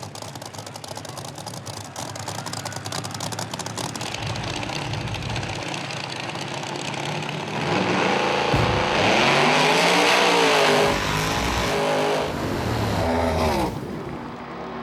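Drag racing car engine running with a fast, rough crackle. Then, about halfway through, it revs hard up and down for several seconds, the loudest part, before settling back to a steadier run.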